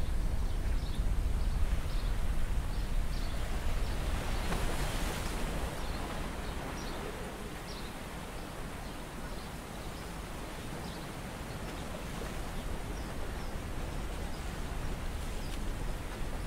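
Wind and sea noise around a small open boat: a steady low rumble under a rushing hiss, with faint short high clicks scattered through it.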